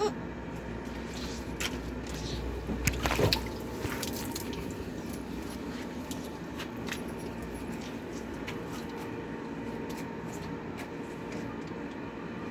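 Washing machine running with water sloshing and splashing in the drum over a steady motor hum, with a louder splash about three seconds in.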